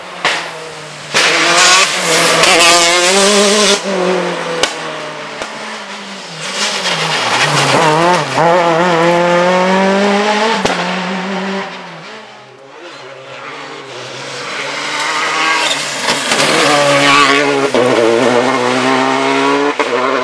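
Rally cars passing one after another at full speed, three in turn, engines revving hard with pitch rising and dropping at each gear change.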